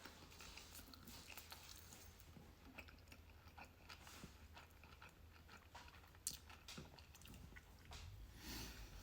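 Faint close-up chewing of a sushi roll: soft wet mouth clicks and smacks scattered throughout, a little stronger about six seconds in and near the end.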